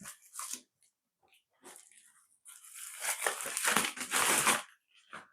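A postal package being torn open and its packaging crinkled by hand: a few short rustles, then a longer, louder stretch of crinkling and tearing about two and a half seconds in.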